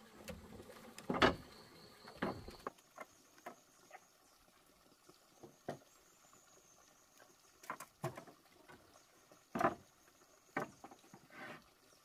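Scattered wooden knocks and clatters as boards are handled and set down on a plank walkway, the loudest about a second in and again near the end. A faint, high, steady insect call runs underneath.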